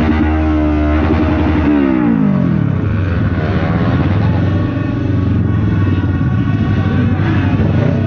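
Motorcycle engines running in slow, dense street traffic, one of them dropping in revs about two seconds in.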